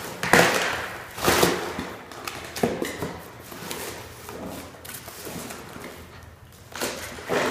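Terriers tearing and pulling at taped cardboard boxes on a hard floor: several short bursts of cardboard ripping and scraping, with thumps as a box is knocked about.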